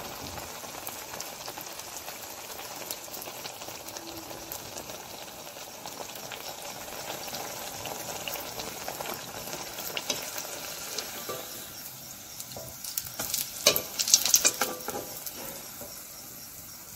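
Potato-batter poya pitha deep-frying in hot oil in a kadai, a steady crackling sizzle. Near the end come a few louder clicks and scrapes as a slotted spoon lifts the fried fritter out.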